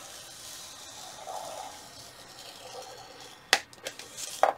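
A scoring tool pressed hard and drawn slowly along the groove of a score board through a thick manila file folder, a soft, steady scraping. A couple of sharp clicks near the end.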